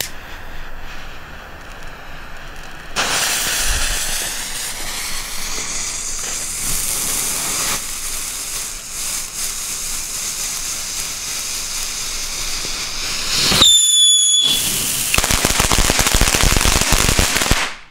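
Small ground fountain firework (a 'Sharky' youth firework) spraying sparks with a loud, steady hiss from about three seconds in. Near the end it gives a brief high whistle, then a burst of dense crackling that cuts off suddenly.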